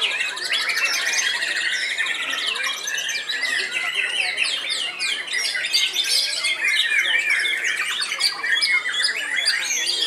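White-rumped shamas singing, a dense, unbroken chorus of quick, overlapping whistles, trills and harsh squawky notes from several birds at once.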